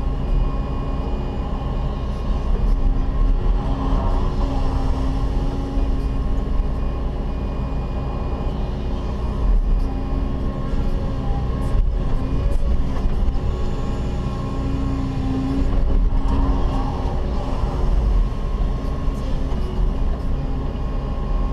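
Cat 316E hydraulic excavator running steadily under load, heard from inside the cab: the diesel engine's low drone with the hydraulics working as the bucket digs and the upper swings. Two brief swells of rougher noise come about four seconds in and again near the end.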